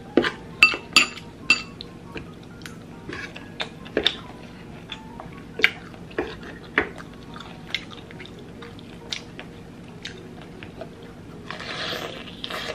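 Close-miked eating sounds: a metal fork clicking, some clicks with a brief high ring, in the first two seconds, then scattered wet mouth clicks of chewing spaghetti. Near the end comes a short crunch as a bite is taken from a piece of crispy fried chicken.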